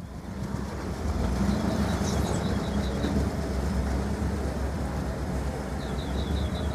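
Off-road vehicle engine running with a steady low rumble, starting in at a cut and growing louder over the first second. Twice, a quick run of about eight high, evenly spaced chirps sounds over it.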